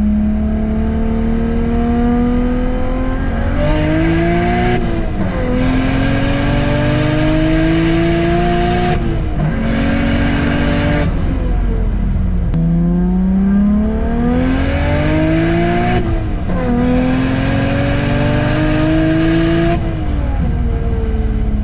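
BMW 335i's N54 twin-turbo inline-six accelerating hard through the gears, its pitch climbing steadily and dropping at each upshift. It runs through two gears, eases off about halfway, then pulls through two more gears, with a louder rush of intake and exhaust noise on the hardest stretches.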